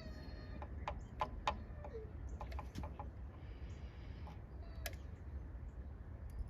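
Scattered light clicks and taps from small electrical parts being handled, with a brief squeaky chirp right at the start.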